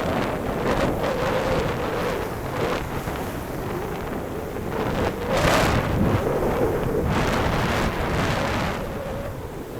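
Wind buffeting the microphone over the wash of sea waves on a beach, with a brief louder hiss about five and a half seconds in.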